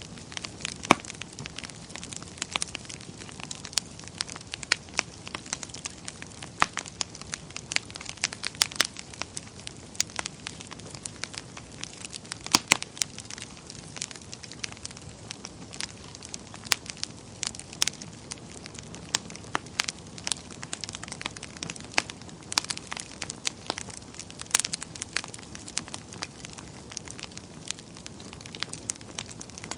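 Wood fire burning in a fireplace: a steady soft hiss with frequent sharp, irregular crackles and pops.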